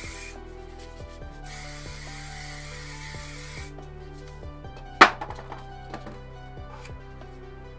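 Aerosol spray paint can hissing in one burst of about two seconds, over steady background music. A single sharp knock about five seconds in is the loudest sound.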